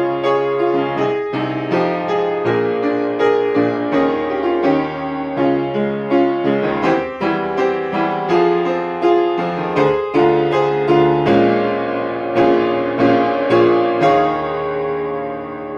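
Piano playing a choral song's accompaniment on its own, without the voices: a steady stream of chords and broken-chord figures over a moving bass line. Near the end a chord is held and left to ring, fading.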